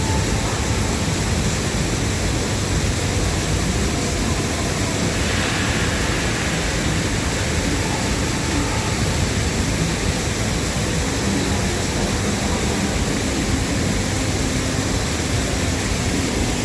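Steady, loud rush of water on a boat water ride, an even noise with no rhythm, swelling briefly about five seconds in.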